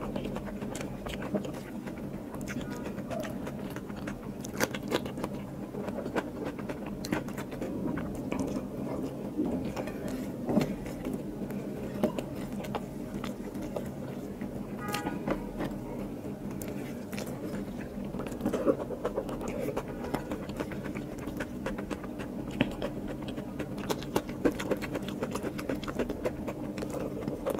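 Close-up eating sounds: wet chewing and lip smacks on mouthfuls of biryani, with fingers squishing and scraping rice on a plate, in many small clicks over a low steady hum.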